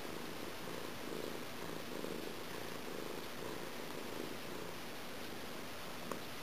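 Black domestic cat purring steadily while being stroked, the purr swelling and easing in slow, even pulses.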